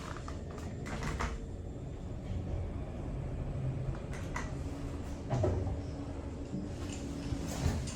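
Schindler 5500 lift's sliding doors and car in operation: several short clunks and knocks over a low steady hum.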